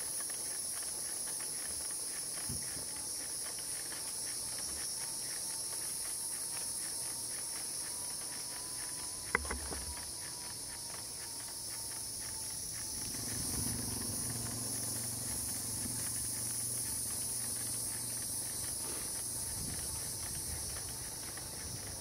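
Steady, high-pitched chorus of insects such as cicadas or crickets droning without a break. A single sharp click comes about nine seconds in, and a low hum rises underneath for several seconds past the middle.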